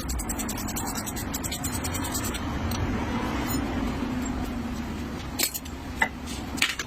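Hand-tool work on a car: a fast run of small metallic clicks and scraping over the first couple of seconds, then three sharp clicks or knocks near the end.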